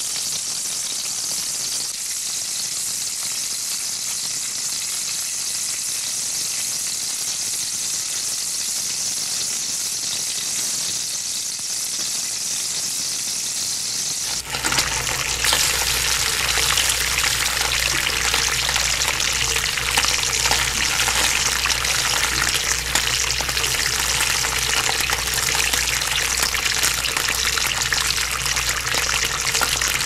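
Hot oil sizzling steadily around pieces of meat frying in a pan. About halfway through it switches abruptly to a louder, fuller sizzle of breaded cutlets frying in shallow oil, with a low hum underneath.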